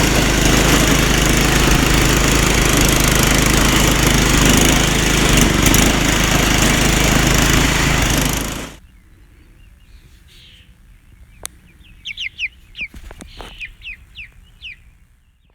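Riding lawn mower engine running steadily at working speed, cut off suddenly about two-thirds of the way through. After that it is quiet, with a few faint clicks and a string of short, falling bird chirps near the end.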